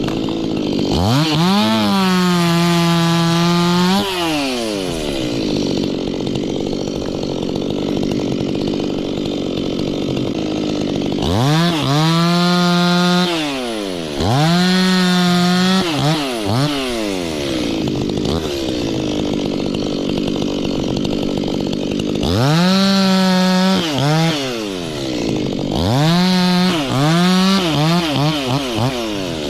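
Stihl two-stroke chainsaw revved to full throttle in bursts of a few seconds, five times, dropping back to idle between them, then blipped in a quick run of short revs near the end.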